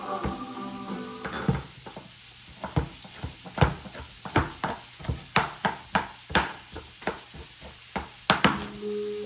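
Music fades out about a second in, then a couple of dozen irregular sharp knocks and clinks of kitchen utensils and cookware follow. Music comes back near the end.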